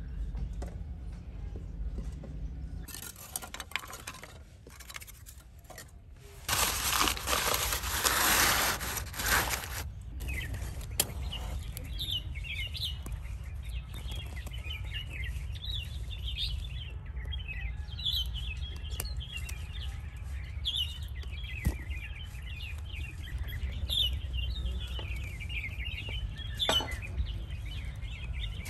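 About a third of the way in, a few seconds of loud rustling, as of crumpled paper being stuffed into the oven's firebox. Then many small birds chirping over a low steady rumble.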